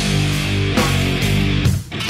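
Backing track of heavy rock music with electric guitar, with a short break just before the end.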